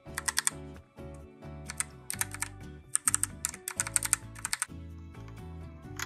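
Logitech POP Keys mechanical keyboard being typed on, in several quick flurries of sharp, clacky keystrokes, over background music.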